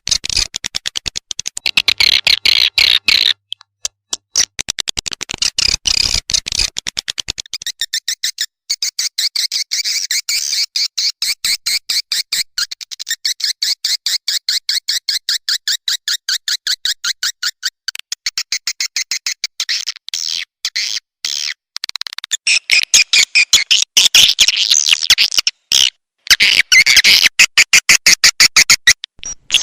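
Swiftlet lure recording: edible-nest swiftlet calls in rapid trains of high chirping clicks, pulsing on and off. It is the looped call used to draw swiftlets into a nesting house, and it gets louder in the last few seconds.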